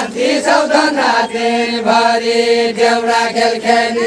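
Deuda, the far-western Nepali folk song, chanted by singers' voices: a few quick sung syllables, then from about a second in one long held note, broken briefly a few times.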